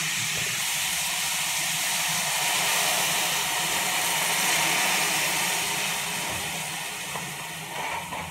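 Sprite soda poured from a plastic bottle into a hot pan of frying prawns, sizzling with a steady hiss of steam that dies down over the last few seconds.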